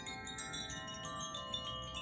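Handheld tuned sound-healing wind chimes, rocked so the clapper strikes the rods in quick, irregular tinkles. Many overlapping bell-like tones ring on and blend together.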